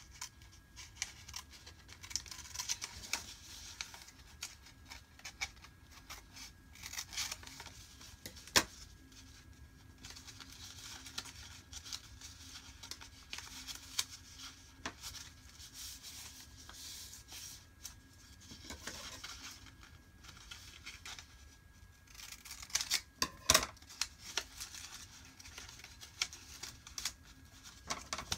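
Scissors snipping through folded paper, with paper rustling and being creased by hand in between. A few sharp clicks stand out, the loudest about a third of the way in and a cluster towards the end.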